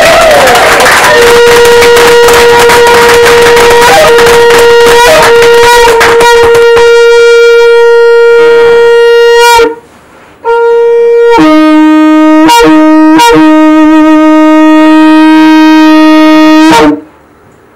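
A very loud horn-like wind tone held on one note for about eight seconds, breaking off briefly, then held on a lower note until near the end, with a run of sharp clicks in the middle.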